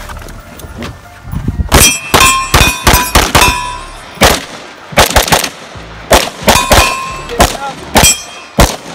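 Rapid, irregular strings of AR-15 rifle shots from more than one shooter firing from behind and inside a car, starting about two seconds in. Several shots are followed by a brief metallic ringing clang.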